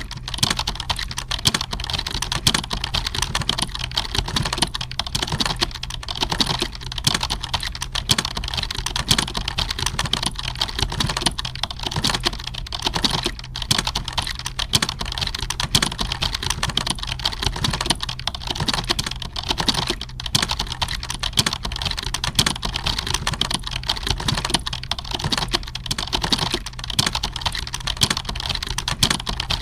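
Computer keyboards in a typing-test hall, typed on fast and without a break: a dense, irregular clatter of keystrokes over a low steady hum.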